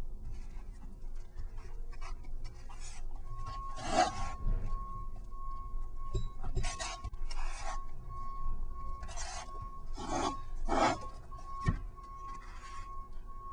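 1-inch adhesive tape pulled off its roll in short rasping strips, about ten irregularly spaced pulls, as it is wound in a half-overlapping spiral onto a foam sword blade.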